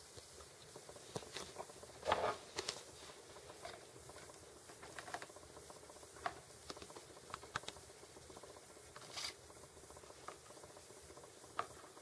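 Scattered light taps and scrapes on the floor of a plastic tub as metal tweezers hold out a worm and a small gecko moves about; the loudest is a short scuffle about two seconds in.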